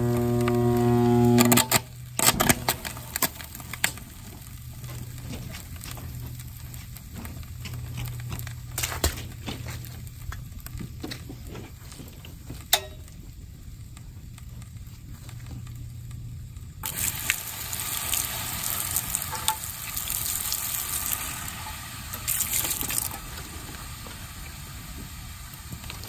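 Vintage Arctic Aire box fan motor burning out: a loud electrical hum swells for about a second and a half, then breaks off into a burst of crackling and popping as the smoking windings fail. A fainter hum and sizzling crackle carry on, with a stretch of hissing about two-thirds of the way through.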